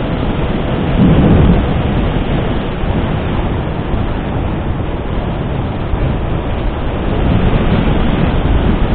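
Heavy wind rush buffeting the microphone of a moving motorcycle, with the bike's running noise underneath; the gusts swell louder about a second in and again near the end.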